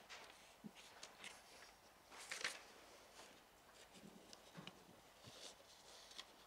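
Faint footsteps on a carpeted floor among scattered small clicks and rustles, with a louder brief rustle about two seconds in.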